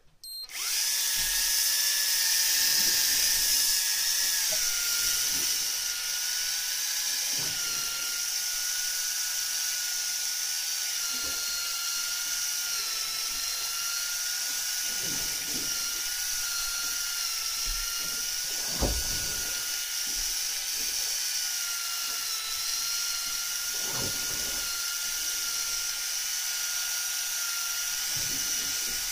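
Electric fishing reel's motor whining steadily as it winds in line. It starts right at the beginning and dips slightly in pitch and loudness about four seconds in. A few soft knocks sound over it.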